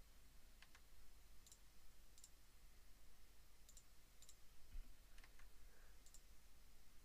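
Faint computer mouse clicks, about eight of them at irregular intervals, some in quick pairs, over a faint steady low hum.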